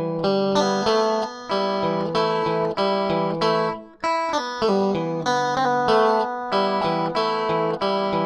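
Opening background music played on a plucked, guitar-like string instrument: a rhythmic run of picked notes over a low repeated bass note, with a brief drop about four seconds in.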